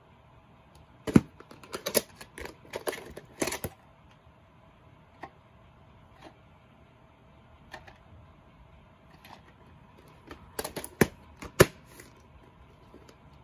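Plastic VHS clamshell case and cassette being handled: a quick run of clicks and knocks about a second in, a few scattered clicks, then another run of clicks near the end.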